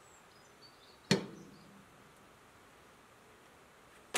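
A stainless-steel cooking pot with its lid set down on the floor cloth: one sharp metal clank about a second in with a brief ring, and a second knock right at the end.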